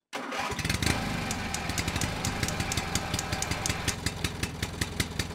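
An engine running steadily with rapid, regular clicks over it.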